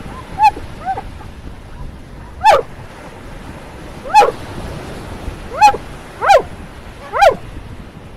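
Dog barking: seven short, high barks, each rising and falling in pitch, at irregular gaps of a second or two, over the steady wash of small waves breaking on the shore.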